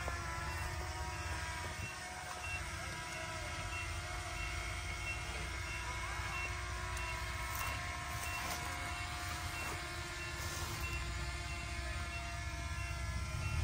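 Komatsu D20P crawler dozer's diesel engine running steadily under load as it pushes wet soil. A reversing alarm beeps evenly, about one and a half beeps a second, throughout.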